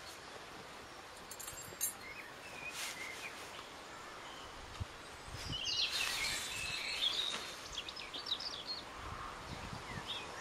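Birds chirping outdoors, with a flurry of chirps about halfway through, over the rustle of a tarp being pulled and pegged out on grass, and a few small knocks.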